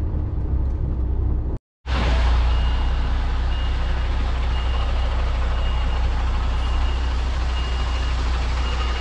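Articulated lorry's diesel engine running as it reverses, with its reversing alarm beeping about once a second from about two and a half seconds in. The sound drops out for a moment about one and a half seconds in.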